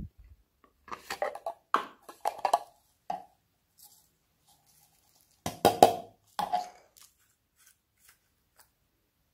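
A glass nail polish bottle being handled and its cap twisted open: a low thump at the very start, then two clusters of small hard clicks and taps, about a second in and again about five and a half seconds in, with a few light ticks near the end.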